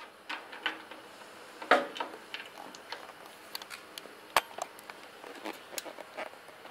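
Hand tools and small metal parts clicking and clinking irregularly while the steering stem nut and washers are fitted at the top of a motorcycle's steering head, with a sharper knock about a second and a half in and another just past four seconds.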